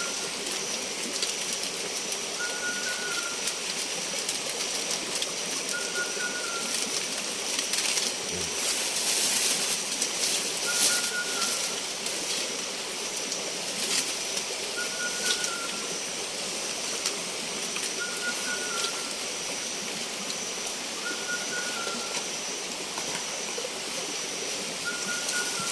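Tropical forest ambience: a short call repeats every three to four seconds over a steady, high-pitched insect-like drone and a constant hiss.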